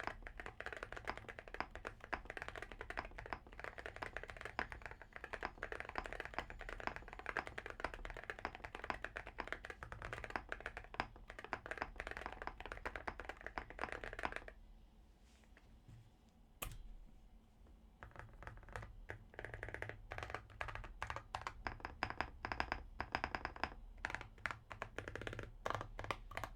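Typing on a custom mechanical keyboard with a deep, thocky keystroke sound: fast continuous keystrokes, a pause of a few seconds about halfway through broken by one sharp click, then typing resumes in looser runs.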